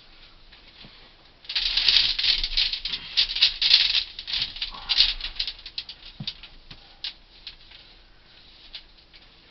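Copper ground-loop tubing being unwound and fed down a borehole, rattling and scraping as it goes. The dense rattle starts about a second and a half in, is loudest over the next few seconds, and trails off into scattered clicks.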